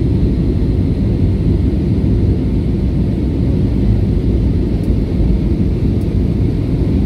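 Airliner cabin noise in flight: a steady, loud low rumble of engines and rushing air heard from inside the plane.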